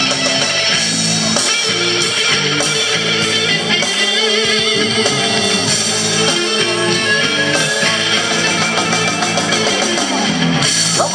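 Rock music played loud over a stage PA: an instrumental passage with guitar to the fore and no vocals.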